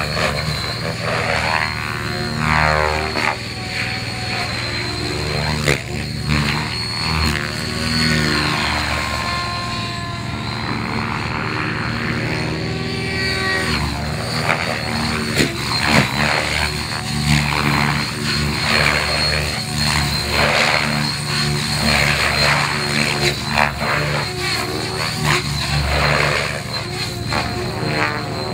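Radio-controlled helicopter in flight, its engine and rotor blades running hard with a steady high whine. The sound sweeps up and down in pitch again and again as it swoops and passes during aerobatic manoeuvres.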